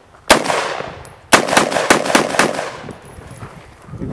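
Semi-automatic AR-style rifle firing: one shot, then about a second later a rapid string of about five shots. Each shot echoes and fades over most of a second.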